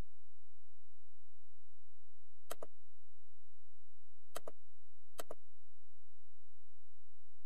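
Computer mouse clicking three times: once about two and a half seconds in, then twice about a second apart a couple of seconds later, each a quick press-and-release. A steady low electrical hum runs underneath.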